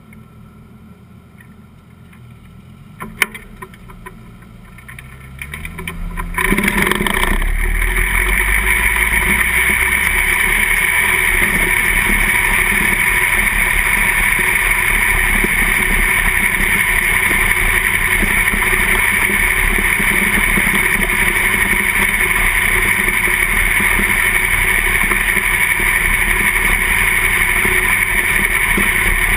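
Winged dirt-track sprint car's V8 engine heard from a camera mounted on the car. For the first six seconds there is only a low, rising hum and a sharp click about three seconds in. Then the engine noise jumps up and runs loud and steady as the car circles the track.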